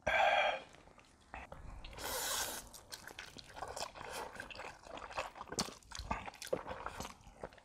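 Spicy instant noodles with crab meat being slurped and chewed: a slurp at the very start and a louder, hissing slurp about two seconds in. After that come steady wet chewing and small mouth clicks.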